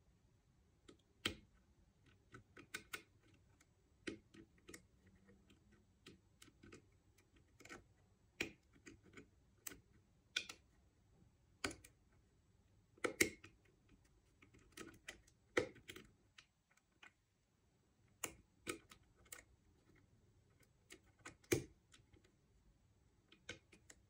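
Light metallic clicks and ticks from a pick and tension tool working the levers inside a Forge 5-lever British Standard mortice deadlock during picking: irregular faint clicks, a few louder ones, with no steady rhythm.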